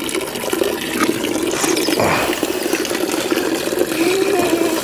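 Water pouring in a steady stream from a drinking fountain's metal spout and splashing.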